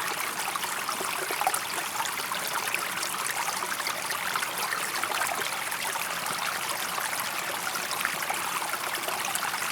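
Shallow river or stream flowing steadily, a continuous babbling with fine splashing and trickling.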